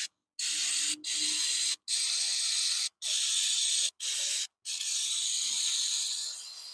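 Aerosol brake cleaner sprayed in about six hissing bursts with short pauses between them, the last burst the longest. The bolts are being degreased so they can take thread locker.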